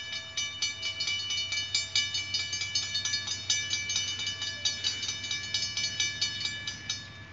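Railroad grade crossing bell ringing with rapid, even strikes, signalling an approaching train; it cuts off suddenly near the end.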